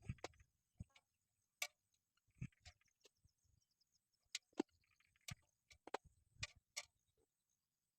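Faint, irregular clicks and knocks, about a dozen spread unevenly over several seconds, with no steady rhythm.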